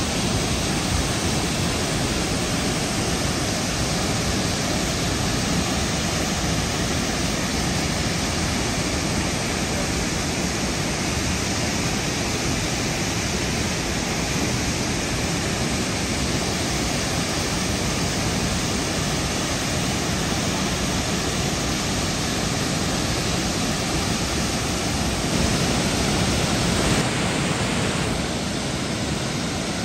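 Waterfall rushing steadily: a continuous, even roar of falling water, dropping a little in level near the end.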